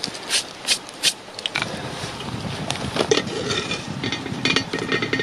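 Dry sticks snapping sharply a few times. About a second and a half in, a small wood fire in a Dakota fire hole flares up and settles into steady crackling and rushing.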